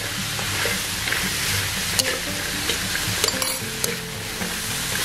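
Crispy fried macaroni being stir-fried in a wok in a thickened chili sauce: a steady sizzle with the clatter of the pasta pieces and occasional clicks of the utensil against the pan.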